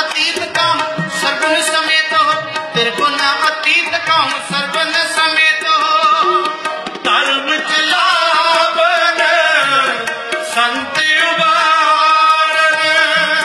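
Sikh kirtan: a man singing a devotional hymn to harmonium accompaniment with tabla drumming.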